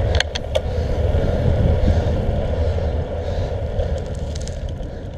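Steady wind and road rumble from riding a road bicycle, heard on a bike-mounted camera's microphone, with a few sharp clicks in the first second. It eases off slowly toward the end.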